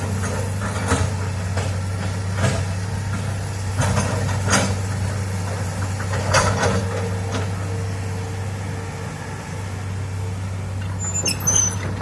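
Hitachi excavator's diesel engine running steadily, with several sharp knocks and clanks scattered through it and a thin steady tone coming in about six and a half seconds in.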